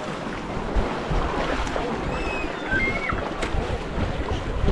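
Seaside beach ambience: wind buffeting the microphone over the wash of small waves in shallow water, with a few faint, distant voices.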